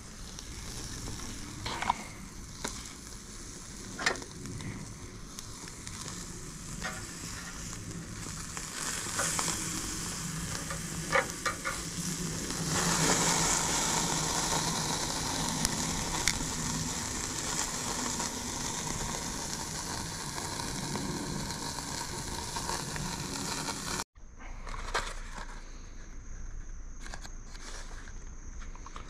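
Butter-basted softshell crabs sizzling on a hot charcoal grill grate, with a few sharp clicks. The sizzling gets louder about halfway through, then cuts off near the end, leaving a quieter background with a steady high-pitched tone.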